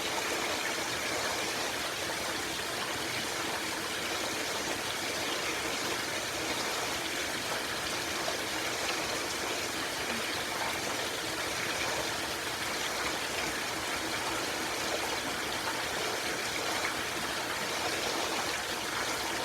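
Rain pouring down steadily: a dense, even hiss with no breaks or distinct drops standing out.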